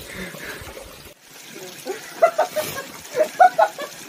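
Stream water trickling in a rocky pool, with short bursts of men's voices about two and three seconds in.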